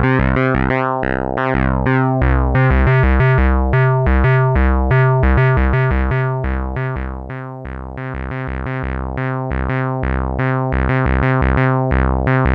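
Behringer MS-1 analog monophonic synthesizer (an SH-101 clone) playing a fast repeating pattern of bass-heavy notes, recorded dry without effects. Each note starts bright and quickly turns duller. The tone grows duller and quieter from about six seconds in, then snaps back bright at about eight seconds.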